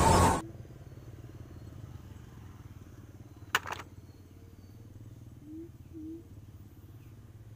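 A loud machinery-like sound cuts off abruptly just after the start. It gives way to quiet outdoor background with a low steady hum, one sharp click about three and a half seconds in, and two faint short chirps about a second later.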